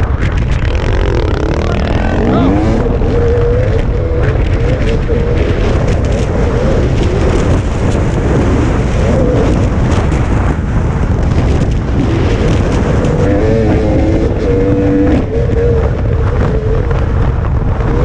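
Dirt bike engine revving up and down as the rider accelerates and shifts on loose desert dirt, the pitch climbing and dropping several times. Heavy wind buffets the on-bike microphone throughout.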